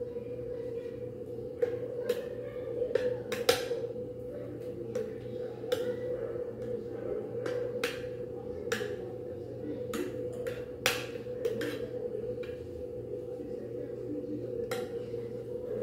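Metal spoon clinking and scraping against a glass baking dish while spreading a cream layer: irregular light clinks, a few louder than the rest, over a steady low hum.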